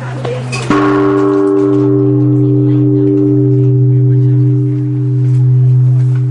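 Japanese temple bell struck once, less than a second in, then ringing on with a long, slowly dying tone over a deep hum that swells and fades in slow waves.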